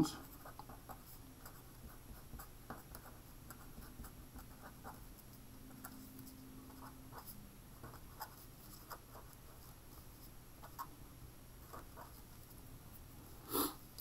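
Pen writing on paper: faint, irregular scratching strokes as words are written by hand. A brief louder noise comes just before the end.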